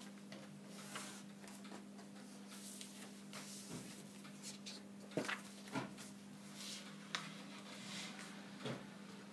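Paper being folded and creased by hand: faint rustling and crinkling, with a few sharper crackles from about five seconds in, over a steady low hum.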